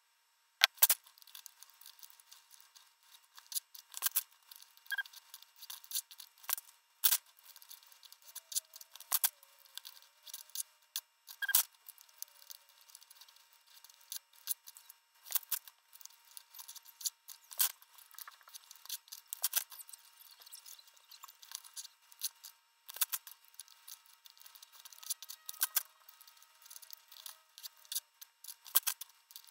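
Paper tearing: graph-paper sheets being ripped out of a spiral notebook and their side strips torn off. It comes as many short, sharp rips at irregular intervals, with paper rustling between them.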